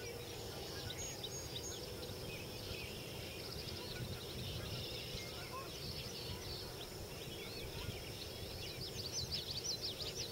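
Small birds chirping and trilling, many short quick notes, over a steady low background noise; the chirping grows denser and louder near the end.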